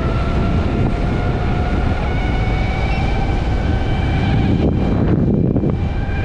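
Electric unicycle ridden at speed: a steady, high-pitched motor whine of several thin tones over a heavy wind rumble on the microphone. About five seconds in, the wind rush swells for about a second.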